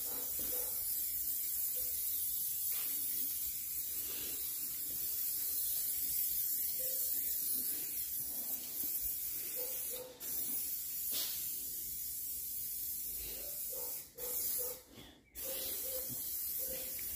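Steady hiss of a hand-held spray wand spraying down a four-wheeler's plastics. It cuts out briefly about ten seconds in, and again twice a couple of seconds before the end, as the trigger is let go.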